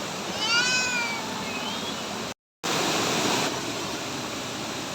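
Waterfall rushing steadily. Near the start a short high-pitched call rises and falls, with a briefer one just after it. About halfway the sound cuts out for a moment, and the water is briefly louder when it comes back.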